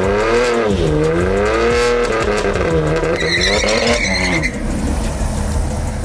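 A performance car's engine revving up and down several times, with a tyre squeal from about three to four seconds in. The revving drops away at about four and a half seconds.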